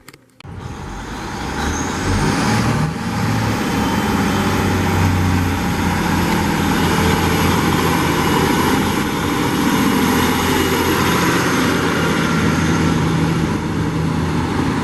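Loud, steady noise of a large vehicle, with a low engine hum. It starts suddenly about half a second in and builds over the next two seconds.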